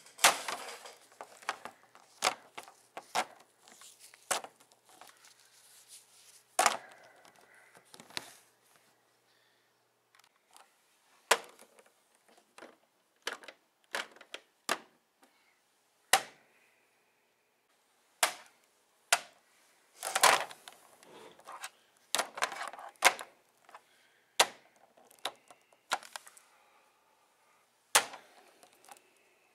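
Plastic action figures clacking and knocking against each other and against a hard plastic toy playset as they are handled in a mock fight. Irregular sharp clacks, some in quick runs, with a few short pauses.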